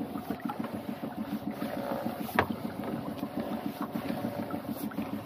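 Lobster pot being hauled up by hand alongside a small boat: water lapping at the hull over a steady low pulsing running sound, with one sharp knock about two and a half seconds in.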